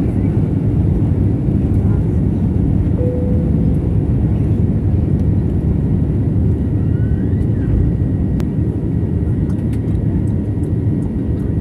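Airliner takeoff heard from inside the passenger cabin: a loud, steady low rumble of the jet engines and rushing air.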